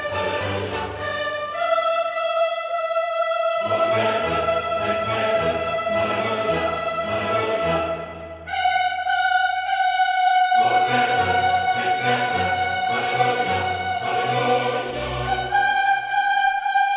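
Orchestral music with long held, soaring melody notes over a string accompaniment.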